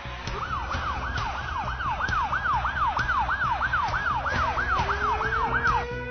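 Siren in a fast yelp, its pitch sweeping up and down about three times a second, stopping shortly before the end.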